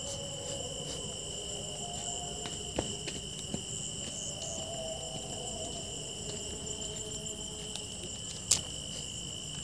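Crickets chirring steadily in a continuous high trill, with a few faint clicks and one sharp knock near the end.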